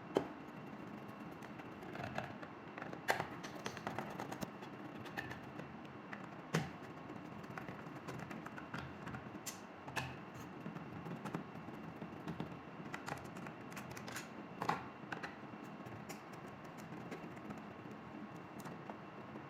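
Faint, irregular clicks and taps of a screwdriver and small plastic parts as screws are taken out of a plastic water timer's cover.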